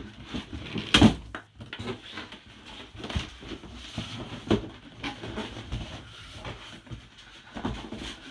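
Styrofoam packing in a monitor box rubbing and creaking with irregular knocks and thumps as a stuck part is worked out of it. The loudest knock comes about a second in.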